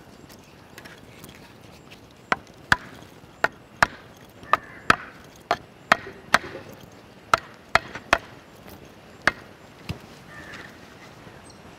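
A steel mason's trowel chopping at a red clay brick held in the hand: about fourteen sharp knocks at an uneven pace, starting about two seconds in and stopping near the end.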